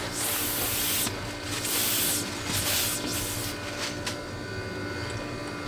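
Protective plastic film being peeled off a polycarbonate storm panel: a run of hissing, crackling pulls, each lasting about half a second to a second.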